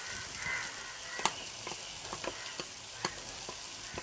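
Shallots and chillies sizzling in a clay pot, a steady frying hiss, as a watery chilli-powder masala paste is poured in. Several sharp clicks sound over the hiss, the loudest about a second in.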